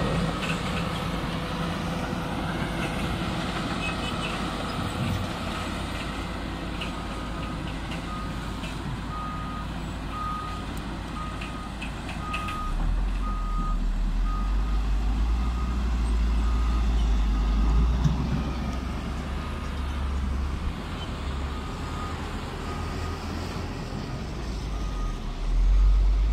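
Heavy diesel mining equipment running, with a deep engine rumble that grows louder between about 13 and 18 seconds in. Over it, a dump truck's reversing alarm beeps at a steady pace of a little more than one beep a second, starting about seven seconds in, as the truck backs into loading position.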